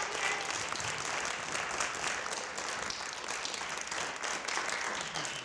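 Audience and cast applauding, a steady clatter of many hands clapping.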